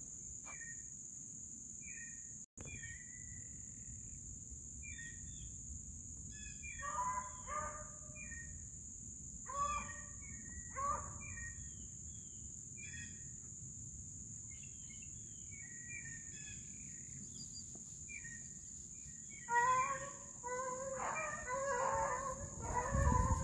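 Pack of beagles baying on a rabbit's trail: a few separate calls at first, then several voices at once near the end. A steady high insect drone and small bird chirps run underneath.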